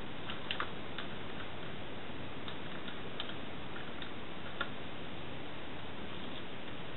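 A few faint, irregular clicks and taps from a plastic pattern-master ruler being handled on pinned pattern paper, over a steady hiss.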